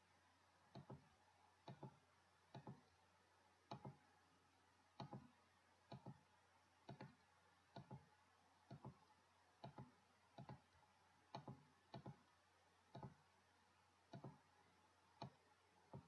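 Faint computer mouse clicks in close pairs, about one pair a second.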